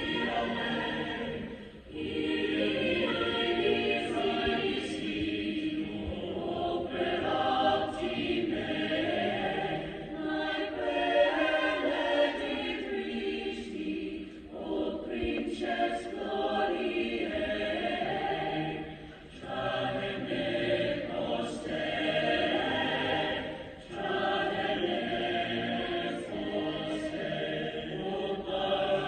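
Choir singing in phrases, with brief gaps between phrases about 2, 19 and 24 seconds in.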